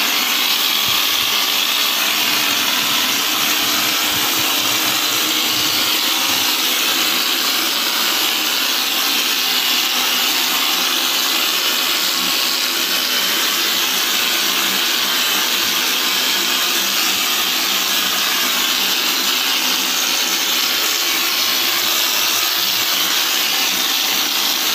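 Hopper texture spray gun blowing compressed air as it sprays a textured concrete-look coating onto a wall: a loud, steady hiss with no break.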